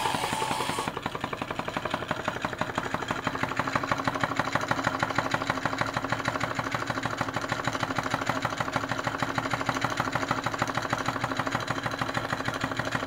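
Homemade candle-heated tin-can Stirling engine running with a rapid, even mechanical clatter. The sound from a small powered speaker cuts off about a second in.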